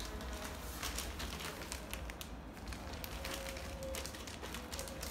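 Plastic shopping bag crinkling and crackling as it is handled and opened, in many small irregular crackles.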